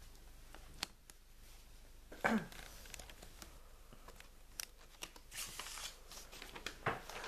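Quiet handling noises: light clicks and rustling as a painted plastic miniature and its paper backdrop are moved about. A brief sound that slides down in pitch comes about two seconds in.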